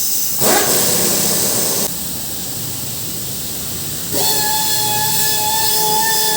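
Compressed air hissing from a tire inflator hose, starting loudly about half a second in and easing off after a second and a half. At about four seconds a steady machine whine starts and runs on.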